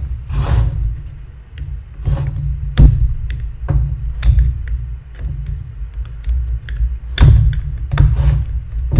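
Irregular clicks and knocks of a hand tool working on a Stihl MS250 chainsaw's plastic housing, over a steady low bed of background music.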